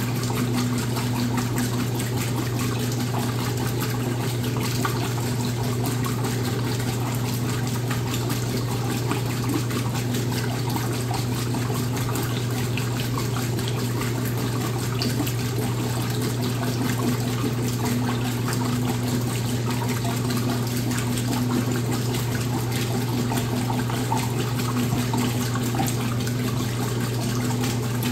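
Washing machine running with water flowing through it over a steady low motor hum.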